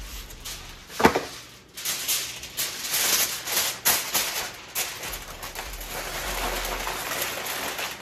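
Aluminum foil crinkling and crackling in irregular bursts as it is folded and crimped to seal over a roast, with one sharper, louder crackle about a second in.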